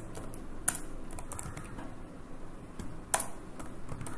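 Typing on a computer keyboard: scattered key clicks, with two louder clacks about a second in and about three seconds in.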